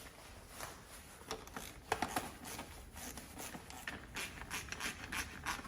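Irregular light clicks, taps and rustles of small objects being handled, growing denser after about three seconds.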